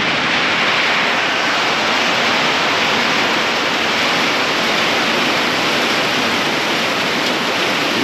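Heavy rain pouring down in a steady, even hiss during a storm.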